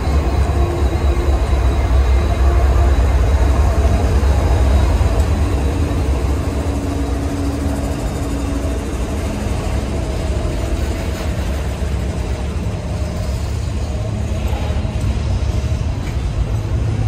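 Norfolk Southern freight train passing close by. For the first five seconds or so its diesel locomotives rumble loudly with a deep engine drone. The sound then eases to the steady rolling of double-stack intermodal well cars on the rails.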